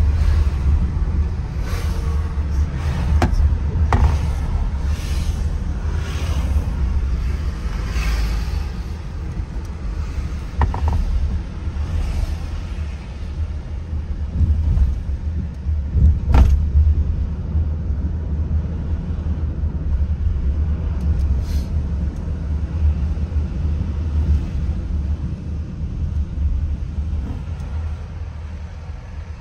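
Steady low rumble of a car driving on city streets, heard from inside the cabin, with a few faint clicks and a sharper knock about halfway through.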